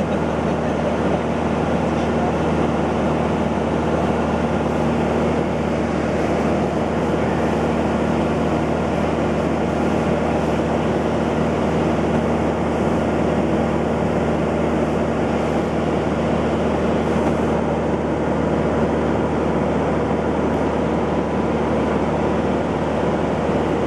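Steady drone of a light propeller airplane's engine and propeller heard inside the cabin in level flight, a constant low hum with several unchanging tones and no change in power.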